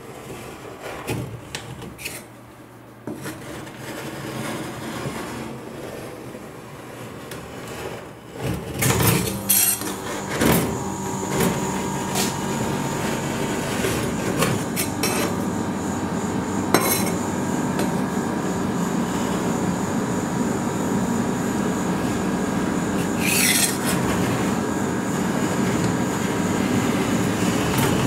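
Metal spatula scraping across a steel cold plate as it rolls a frozen sheet of ice cream into rolls. The scraping is quieter at first, then louder, with sharp metal clinks, from about nine seconds in.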